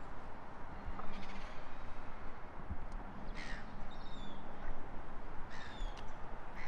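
Birds calling twice, each a harsh call followed by short falling whistled notes, over steady low background noise.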